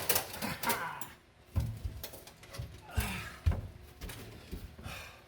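A wire rattling and scraping against the car's sheet-metal body as it is worked through an anchor hole, with irregular clicks and several dull knocks.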